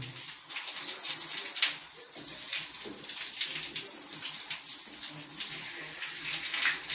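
Water running steadily from an electric shower head and splashing in a tiled shower stall.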